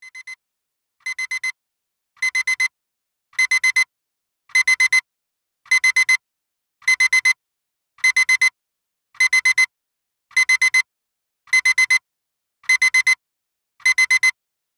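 Digital alarm-clock-style timer alarm going off as the countdown runs out: high-pitched beeps in quick bursts of four, a burst a little more than once a second, growing louder over the first few bursts and then holding steady.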